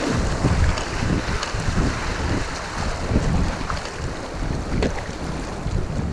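Rushing river water through a shallow riffle, with kayak paddle strokes splashing and wind buffeting the microphone.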